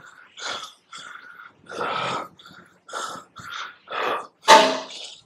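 A man panting hard after exertion: quick, breathy breaths about two a second, with one louder, voiced breath near the end.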